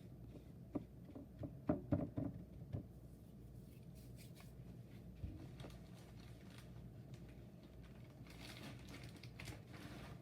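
A quick run of light taps and knocks from food prep on a kitchen counter, then a soft rustle near the end.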